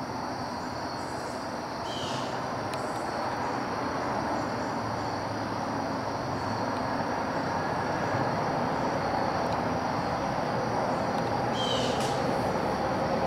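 Steady rushing woodland background noise that grows slightly louder, with a short high chirp about two seconds in and another near the end.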